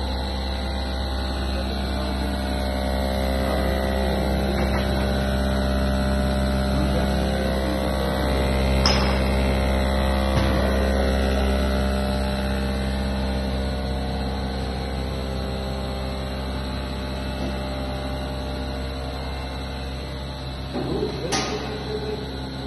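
Plastic net extrusion and winding line running: a steady electric motor hum with several steady tones. A sharp click comes about nine seconds in, and another click with a few knocks comes near the end.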